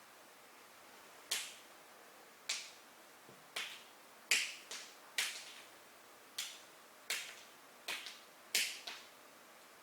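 A series of about a dozen sharp snaps at irregular intervals, some close together in pairs, each with a brief echo, against a quiet room.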